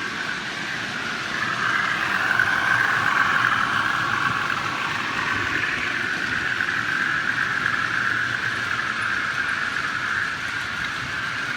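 OO gauge model train running along the layout track, a steady whirring of motor and wheels on rail that grows louder about a second and a half in.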